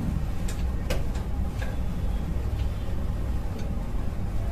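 Steady low rumble of background noise with a few faint ticks scattered through it.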